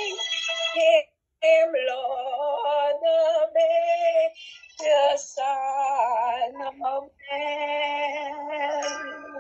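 A woman singing a slow Christmas carol solo, holding long, wavering notes, heard over a video call. The sound cuts out completely for a moment about a second in.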